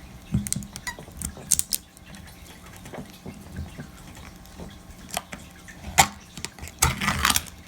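A plastic slime tub being handled while its paper seal is peeled off: scattered light clicks and crinkles, with a sharp click about six seconds in and a quick run of crinkling near the end.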